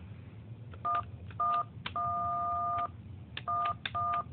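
DTMF touch-tone beeps, the same key sounded five times, with the third press held for about a second. They are the control signal for a cordless drill modified to switch on through a relay.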